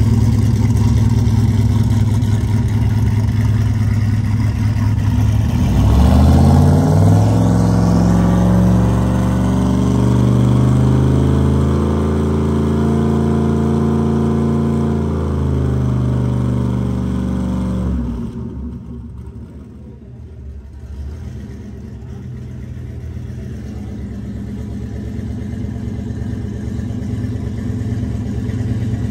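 Turbocharged LS1 V8 in a VL Commodore running with a lumpy idle, then revving up about six seconds in and holding higher revs for around ten seconds. The note falls away abruptly later on, and a quieter engine sound slowly builds back up toward the end.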